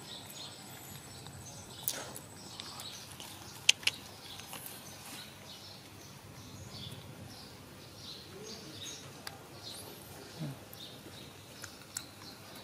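Faint, scattered high bird chirps with a few sharp clicks and taps, the loudest click a little under four seconds in.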